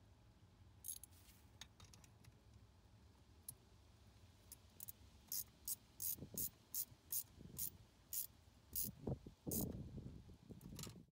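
Steel wrenches working a brass fitting on a sprinkler backflow-prevention manifold: a run of about a dozen sharp metal clicks, two or three a second, starting about four and a half seconds in, with duller knocks and scraping near the end before the sound cuts off suddenly.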